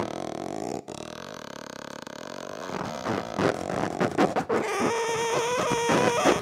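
Amplified credit cards and small metal objects being scraped and bowed, giving squeaks, creaks and rapid clicking; about five seconds in a steady held tone sets in under the scraping.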